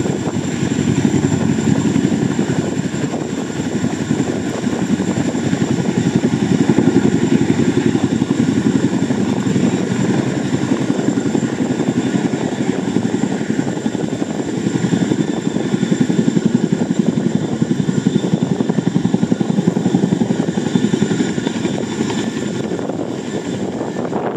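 CH-47 Chinook tandem-rotor helicopter hovering low over water: the loud, steady, rapid chop of its two rotors, with a steady high whine above it.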